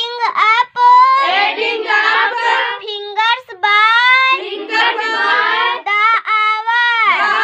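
A young girl's high voice reciting an English poem aloud in a sing-song chant, line after line with only brief breaths between phrases.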